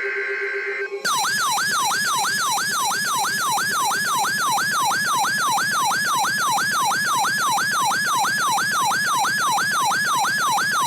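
Weather alert radio's electronic siren alert: a rapid falling sweep repeated about three times a second, signalling an incoming warning. It starts about a second in, after a brief burst of buzzing data tones, and cuts off suddenly near the end.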